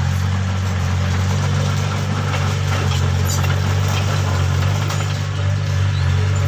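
Steady low engine-like hum, even and unchanging, with a noisy mechanical wash over it and a few faint ticks.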